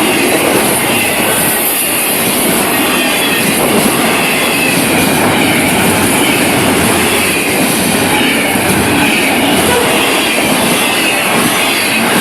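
Cars of a Florida East Coast Railway freight train rolling past close by: a steady, loud rumble and rattle of wheels on the rails that does not let up.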